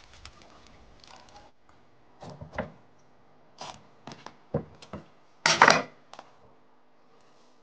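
A broad kitchen knife cutting through a pumpkin's hard rind on a wooden chopping block: a string of short cracks and knocks, the loudest about five and a half seconds in as the pumpkin splits open.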